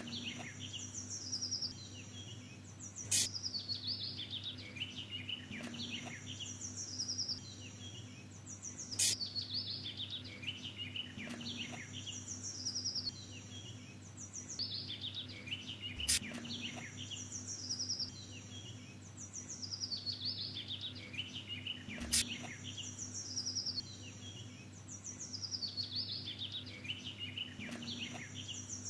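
Birdsong ambience: chirping bird calls in a pattern that repeats about every six seconds, with one sharp click in each cycle, over a steady low hum.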